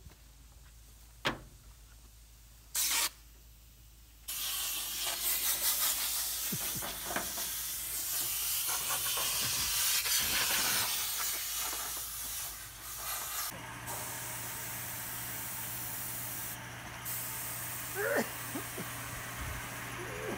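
A short sharp hiss of air, then about four seconds in a loud steady hiss of escaping compressed air starts suddenly. After about thirteen seconds a steady low hum joins it.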